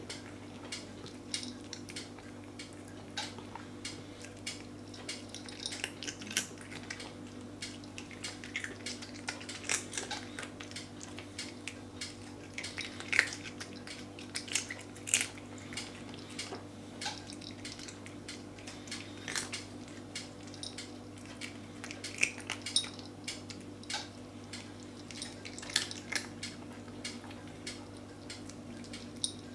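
A cat eating dry cat biscuits, crunching them in an irregular run of sharp little clicks and crunches.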